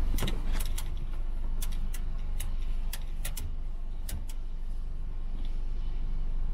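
A steady low hum from the idling car, with a dozen or so sharp, irregular clicks and taps in the first four seconds or so as a miniature dachshund puppy scrabbles against the car door and window.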